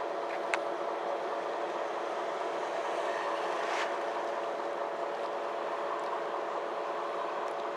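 MAN Lion's City G articulated bus heard from inside the passenger cabin while moving: a steady drone from the engine and driveline over road noise, with a few faint rattles.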